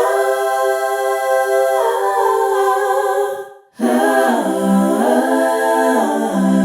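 Unaccompanied voices singing long held notes, breaking off briefly about three and a half seconds in and then going on with notes that rise and fall.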